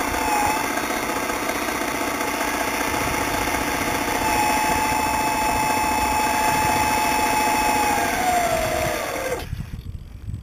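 Hydraulic pump of a radio-controlled miniature CAT 320 excavator running with a steady buzzing whine, its pitch shifting as the boom and bucket move. The whine drops in pitch and then cuts off suddenly about nine seconds in.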